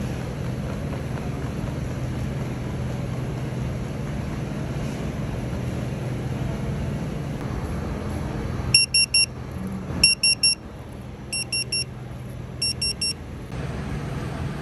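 Restaurant guest pager beeping: four quick groups of three short, high electronic beeps, each group a little over a second apart, starting about nine seconds in. This is the pager's call that the order is ready to collect. Before the beeps there is a steady low background hum.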